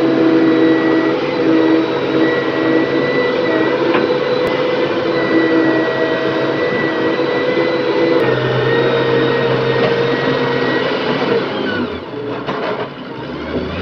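Diesel engine of a Hitachi wheeled excavator running under load as the machine grips and uproots a tree, with a steady high whine over the engine note. The low engine note changes about two-thirds of the way through, and the sound eases off near the end.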